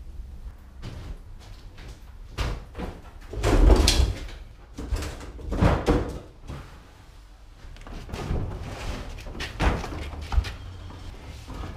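Large plastic wheeled garbage and recycling carts being grabbed, dragged and rolled over a concrete garage floor: a run of irregular knocks, bumps and rattles, the loudest a heavy thump about four seconds in.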